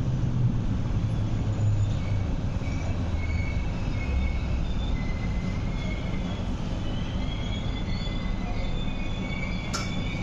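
Interior of an MTR East Rail Line MLR electric train running on the track: a low rumble that eases off after a few seconds, with faint high wheel squeals over it and a sharp click near the end.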